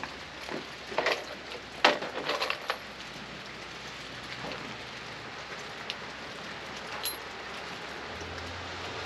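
Pieces of wood knocking together a few times in the first three seconds, the last as a quick run of clacks, over a steady patter of rain.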